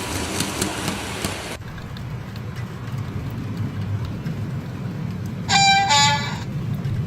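O gauge model train running with a low rumble, under the hiss of the simulated rainstorm, which cuts off suddenly about a second and a half in. Near the end, the locomotive's horn gives two short toots.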